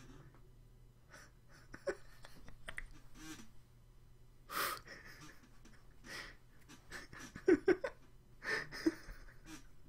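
A man laughing under his breath: short, breathy bursts of stifled laughter, the strongest in the second half.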